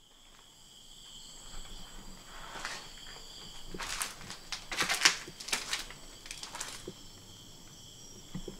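Footsteps crunching and scraping over rubble and debris on a concrete floor, a cluster of louder steps around the middle. A steady high-pitched whine runs underneath.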